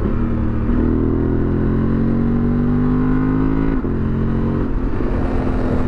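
Honda Transalp 750's parallel-twin engine through a Yoshimura slip-on exhaust, under hard acceleration with the revs climbing. About four seconds in there is a quick-shifter upshift: the pitch drops sharply, then the engine pulls on.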